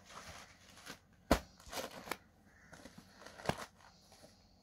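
Cotton saree fabric rustling as it is handled and laid out flat, with two sharp taps about two seconds apart.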